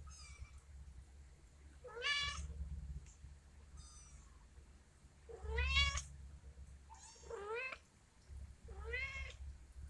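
Kittens mewing: a series of short, high, rising mews, about four clear ones a couple of seconds apart with fainter ones between.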